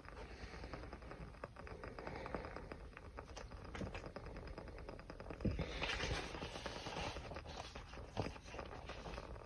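Small fire crackling: a steady run of sharp pops and snaps, with a brief swell of hissing flame about six seconds in.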